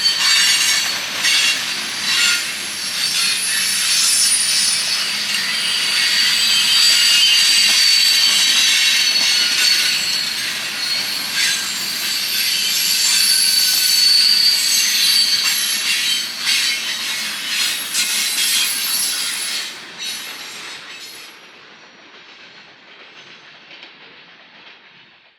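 Train cars rolling past with a high-pitched wheel squeal and repeated clicks and knocks from the wheels. The sound drops off sharply about twenty seconds in, leaving a faint remainder.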